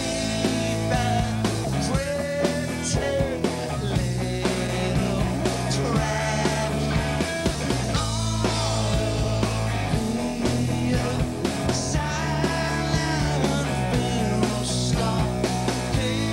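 A rock band playing live, with electric guitars, drums and a male lead voice singing.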